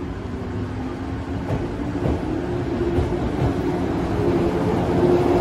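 Shinano Railway 115 series electric train pulling out of the station: the humming traction motors and rolling rumble grow louder as it gathers speed. A few sharp clacks from the wheels come about a second and a half, two and three seconds in.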